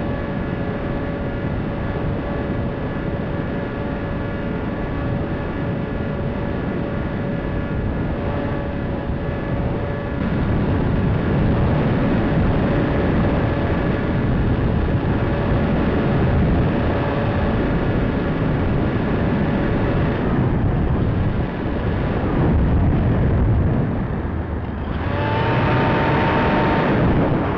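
A Bixler RC plane's electric motor and propeller whining steadily under the rush of wind on the onboard microphone. The wind grows louder about ten seconds in. The whine drops out around twenty seconds in, and a higher-pitched whine comes in for the last couple of seconds as the plane banks steeply downward.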